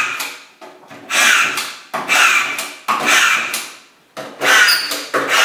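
Festool DuraDrive cordless autofeed drywall screwdriver driving collated screws into plasterboard in quick succession, about one a second. Each is a short burst as the brushless motor spins up when the tool is pushed against the board, then drops away as the screw seats and the strip feeds the next one.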